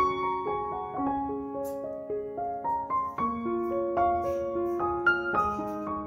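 Background piano music: a gentle melody of held notes.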